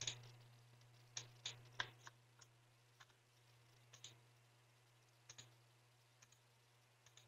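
Faint computer mouse clicks: one at the start, a quick run of four a little after a second in, then single clicks every second or so, over a faint steady low hum.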